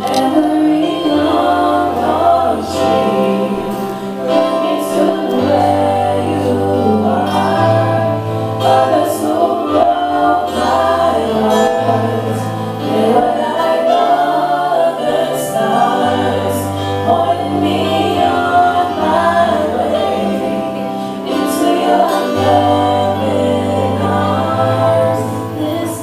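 Gospel-style music: a group of voices singing together over a keyboard accompaniment, with held bass notes that change every couple of seconds.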